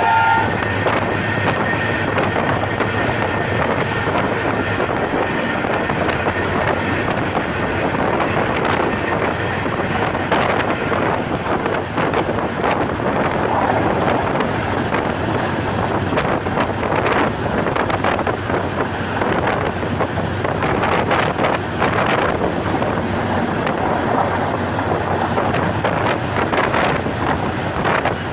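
Passenger train running at speed: a steady rush of wind and running noise, broken by irregular clicks and knocks from the wheels and coaches.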